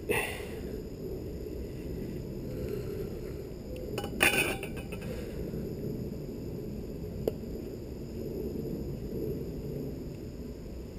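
Metal parts of a motorcycle slip-on exhaust muffler being handled as its repacked core is squeezed into the can: a brief clink and scrape at the start, a louder scraping clatter about four seconds in, and a single sharp click about seven seconds in, over a steady low background hum.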